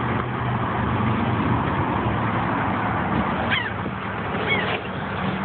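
A few short, downward-sliding bird calls from gulls at the beach, over a steady low hum and a background rush of noise.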